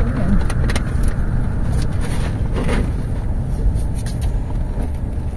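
A car driving, heard from inside the cabin: steady low engine and road rumble, with a few brief clicks and knocks.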